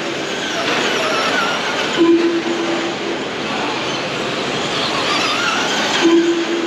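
Electric off-road RC cars racing on a dirt track: motor whines rising and falling over a steady gritty running noise. A low steady tone sounds for about a second, twice.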